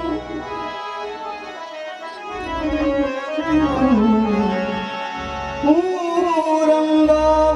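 Indian devotional music played live through loudspeakers: a singer holding long, gliding notes over harmonium and tabla.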